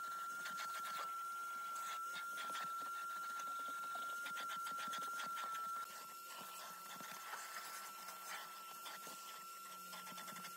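Vacuum cleaner running with a steady high whine while its hose nozzle is worked over car floor carpet, with scratchy scraping of the nozzle on the carpet. It gets a little quieter about six seconds in.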